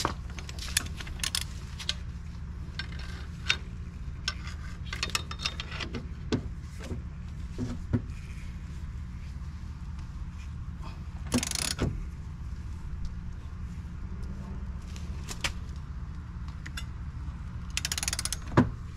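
Metal clicks and clinks of a socket ratchet turning a lug nut by hand to pull a new M12×1.5 wheel stud into the hub, with short runs of rapid ratchet clicking about eleven seconds in and near the end. A steady low hum runs underneath.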